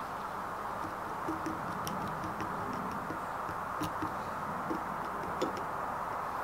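Faint, irregular small clicks and taps of hands handling a superglue tube and the rock pieces of a fossil, over a steady background hiss.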